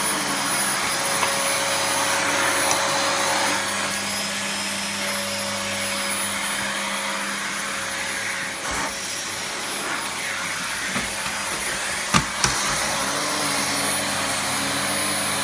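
Vacuum cleaner running steadily, a loud rushing noise with a high whine, and two sharp knocks about twelve seconds in.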